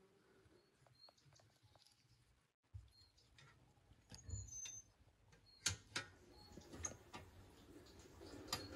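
Quiet outdoor ambience with faint short high chirps and a few light clicks and taps, the sharpest about two-thirds of the way in and just before the end.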